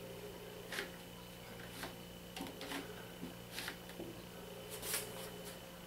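A handful of faint, scattered clicks and light rubs as Kato N-scale expansion track sections are slid open by hand.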